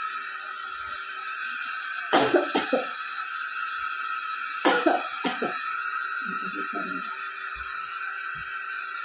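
A person with a cold coughing in short bouts: a few quick coughs about two seconds in, another bout near five seconds, and weaker ones near seven seconds, over a steady background hiss.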